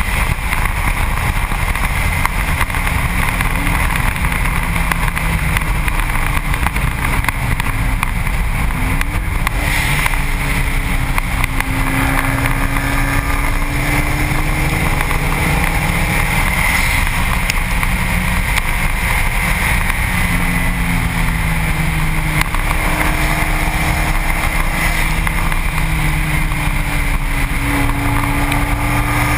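Wind and road roar on a Subaru WRX STi's front bumper at track speed, with the car's turbocharged flat-four engine note rising and falling as it accelerates and lifts through the corners.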